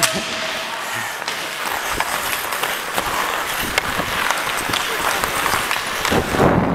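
Ice hockey skates carving and scraping on the ice, with many sharp clicks and taps of sticks and puck. Wind buffets the skating wearer's body-mounted camera microphone in a low rumble that swells near the end.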